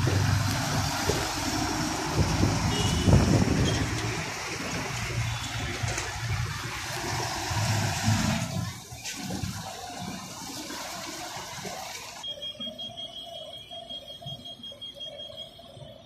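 City buses moving through a bus station: low engine rumble under a loud rushing hiss that drops away about eight or nine seconds in. What is left is a quieter engine hum, with a faint steady high whine near the end.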